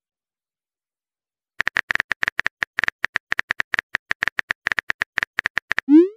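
Phone keyboard tap clicks as a text message is typed, rapid and slightly irregular at about nine taps a second, starting about a second and a half in. Near the end comes a short rising swoosh tone as the message is sent.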